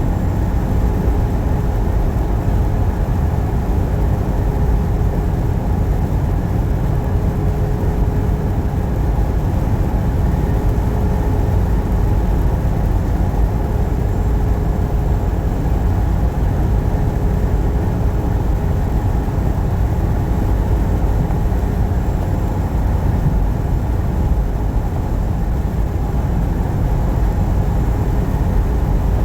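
Steady low rumble of a truck's engine and road noise heard from inside the cab while driving, with a faint constant hum over it.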